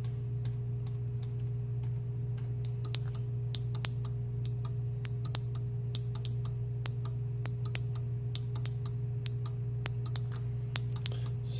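Mechanical relays on an 8-channel 5 V relay board clicking on and off as a test script switches the channels in turn: dozens of sharp clicks, a few at first and then in quick, uneven succession from about three seconds in. A steady low electrical hum runs under them.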